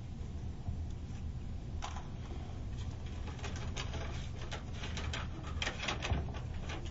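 A sheet of paper rustling and crackling as it is drawn out of a small satin bag and unfolded. The crackles begin about two seconds in and come thick and fast in the second half, over a steady low room hum.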